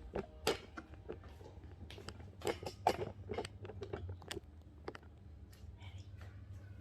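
A series of small clicks and knocks, thickest about two to three and a half seconds in, over a steady low hum.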